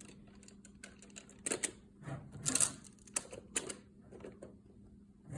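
Plastic Magna-Tiles magnetic building tiles clicking and clacking together as they are handled and snapped into place: a scatter of sharp, irregular clicks.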